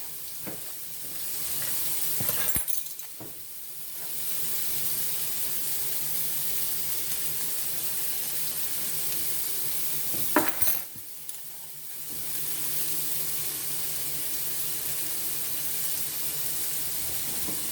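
Chopped onion and garlic sizzling steadily in butter in a cast iron skillet, with two short knocks, about two seconds in and again about ten seconds in.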